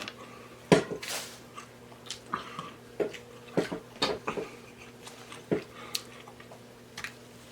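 Close-miked eating sounds: irregular chewing, lip-smacking and sharp wet clicks from a person eating seafood boil, over a faint steady hum.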